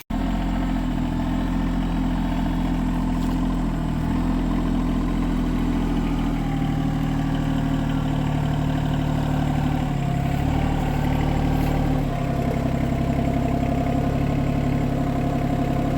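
Branson 2505h compact tractor's diesel engine running steadily, its pitch shifting a few times partway through.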